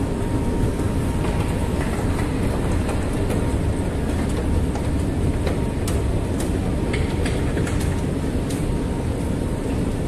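Indoor escalator running, a steady mechanical rumble with a faint steady hum, heard while riding it down, with a few light clicks in the second half.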